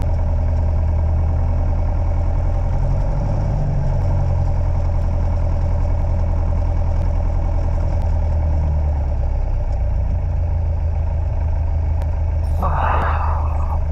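Light aircraft's piston engine and propeller running steadily, heard in the cockpit as a loud, even low drone that shifts slightly in pitch about three and nine seconds in. Faint ticks from the recorder come now and then, and a short, louder muffled sound breaks in about a second before the end.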